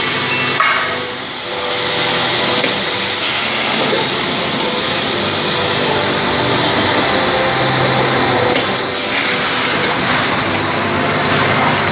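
Automatic packing machine with its weigher running: a loud, steady mechanical din with a thin high whine, and a sharp knock about half a second in and another near nine seconds.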